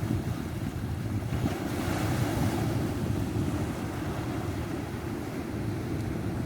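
Ocean waves breaking and washing up the shore, with wind buffeting the microphone. A wave breaks with a louder wash about two seconds in.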